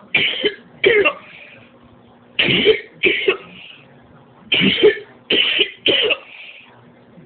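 A woman coughing over and over: seven coughs in three bouts of two, two and three, each bout about two seconds after the last. It is a persistent cough that has not eased.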